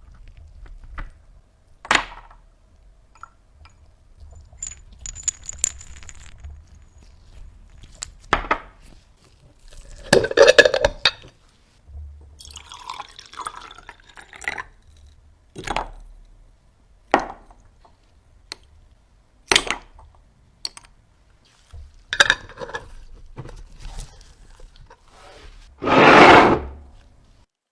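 Glass clinking and tapping with liquid dripping and splashing, in scattered short knocks, and a louder burst lasting about a second near the end.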